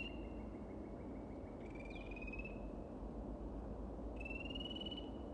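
A frog calling: a short, slightly rising trill, repeated about every two and a half seconds, over a steady low background hum of the wetland.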